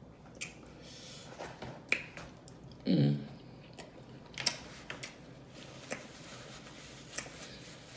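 Close-up wet chewing and lip smacking of seafood in butter sauce: scattered sharp smacks and clicks, about one every half second, with a brief voiced hum about three seconds in.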